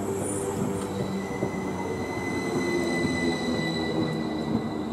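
Electric multiple unit passing close along the platform: a steady rumble of wheels on rail with a high-pitched whine that strengthens about a second in and holds steady.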